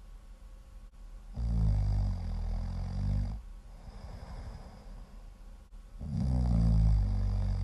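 Really loud, low-pitched snoring: two long snores, one starting about a second and a half in and the next about six seconds in, with quieter breathing between.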